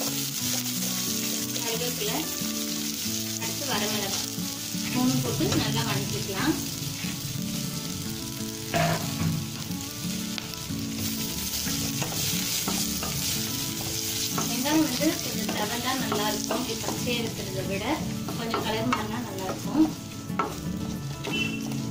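Chopped onions, dried red chillies and curry leaves sizzling in hot oil in a steel kadai while being stirred, with occasional scrapes and taps of the spatula on the pan. This is the tempering stage of a sundal.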